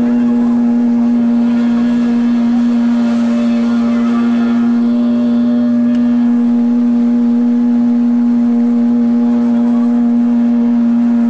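Motorboat engine running at a steady speed under way, a constant drone that holds one pitch.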